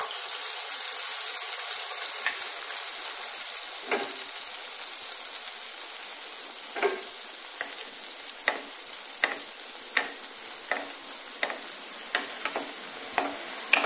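Urad dal vadas deep-frying in hot oil, one of them freshly dropped in as raw batter: a steady high sizzle that slowly softens. Sharp pops and crackles join in after a few seconds and come more often towards the end.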